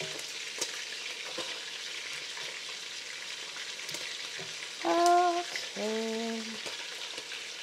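Pieces of meat frying in hot oil in a large pot: a steady sizzle with a few small pops. About five seconds in, two brief pitched notes sound, the second lower and a little longer.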